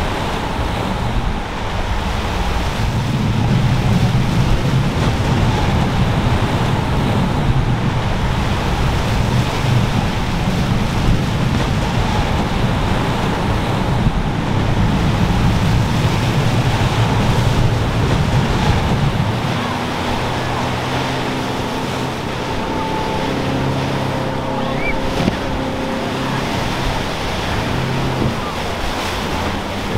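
Breaking surf and wind on the microphone as outboard-powered boats run through rough waves. About two-thirds of the way in, a steadier engine hum from an outboard motor comes through over the surf.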